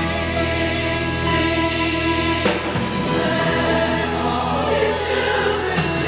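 Choir singing long-held chords over instrumental accompaniment, moving to a new chord about two and a half seconds in.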